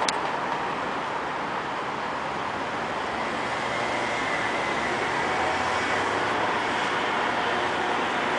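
Steady city street noise with traffic, with a brief click at the very start.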